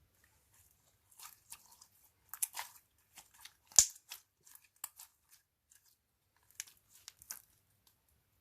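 Scattered crunchy crackles and clicks from slime and objects being handled and mixed by hand, with one sharp, louder click about four seconds in.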